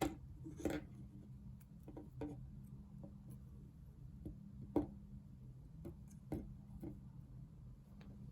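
Scattered light clicks and taps, about a dozen at irregular spacing, over a steady low hum.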